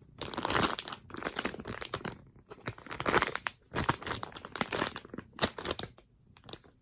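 Squishy packaging crinkling and rustling in irregular crackles as it is handled and opened, falling quiet shortly before the end.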